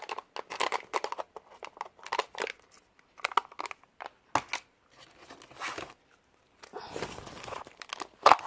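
Play-Doh packaging handled: irregular crinkling and tearing of plastic wrap with small clicks and taps, and a longer rustle near the end.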